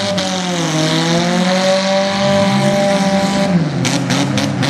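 Demolition derby car engines running hard at high revs while one car shoves against another, with a hiss over them until the revs ease about three and a half seconds in. Several sharp knocks come near the end.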